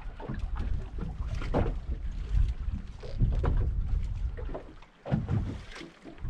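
Wind rumbling on the microphone aboard a small open fishing boat, with scattered light knocks and faint short sounds; the rumble drops away briefly about five seconds in and again near six.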